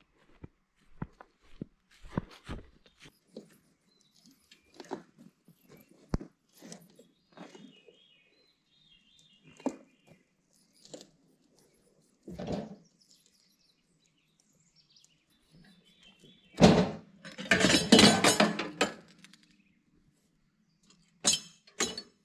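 Scattered knocks and footfalls on grass with birds chirping, then, about three-quarters of the way through, a loud clatter of about two seconds as the sawmill head is pushed over plywood boards.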